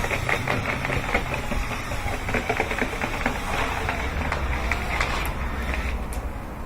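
Rotary dryer-vent cleaning brush spinning on its rods inside the vent duct, with a steady motor hum and a dense rattling as the rods knock against the duct. It eases off near the end.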